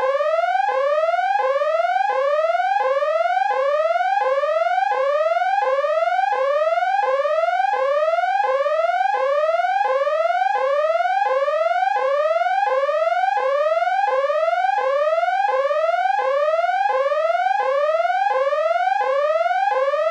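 Electronic emergency alert alarm tone: a repeating rising sweep, each rise lasting about two-thirds of a second before it drops back to the bottom and starts again, about three sweeps every two seconds.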